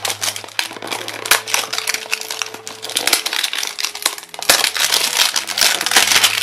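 Cellophane wrapping on a small cardboard blind box crinkling and crackling in the hands as it is worked loose, a dense, irregular run of sharp crackles.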